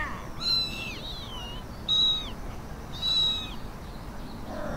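Kitten mewing three times in high-pitched calls: a long first one that bends down in pitch, a short second, and a third of middling length.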